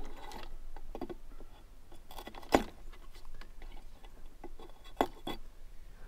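Small scattered clicks and ticks of wires and a soldering iron being handled at the terminal block of a sawmill control box, with two sharper clicks about two and a half seconds and five seconds in.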